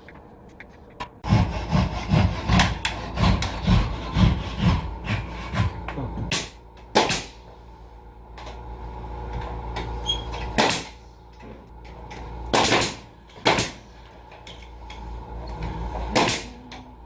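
Hand saw cutting through wood in quick back-and-forth strokes, about three a second, for some five seconds, followed by a few separate sharp knocks.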